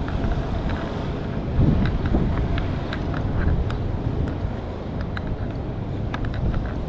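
Outdoor street sound: a low rumble of passing traffic with wind buffeting the microphone, and scattered light clicks throughout.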